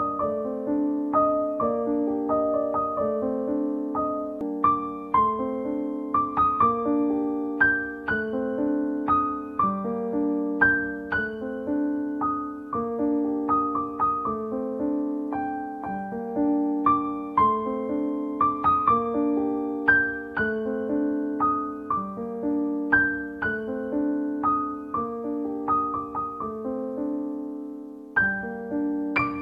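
Background piano music: a gentle, repeating pattern of struck notes that ring on and fade, dipping briefly near the end.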